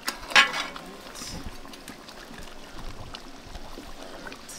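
Metal ladle stirring and scooping thick curry goat in a large aluminium pot, with one loud ringing knock of the ladle on the pot about half a second in and a softer one about a second later.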